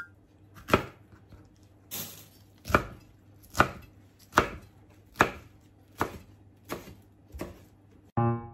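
Chef's knife chopping leafy greens on a wooden cutting board: about nine even strokes, a little over one a second, each ending in a sharp knock of the blade on the board.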